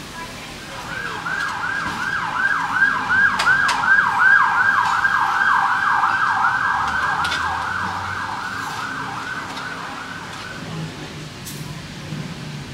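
Emergency vehicle siren in a fast yelp: rapid repeating up-and-down wails, about four a second. It grows louder, then fades as it passes, and stops a couple of seconds before the end.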